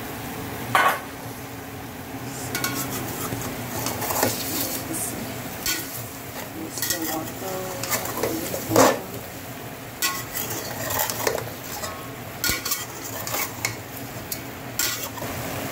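Metal ladle scraping and clinking against the sides of an aluminium pot as chicken pieces are stirred, with frying sizzle underneath. The clinks come irregularly, every second or so, the loudest about a second in and again a little past the middle.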